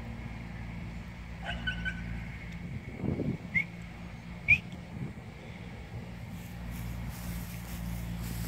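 Siberian husky puppy whining: a few short, high squeaks that rise in pitch, the loudest about four and a half seconds in, over a steady low hum.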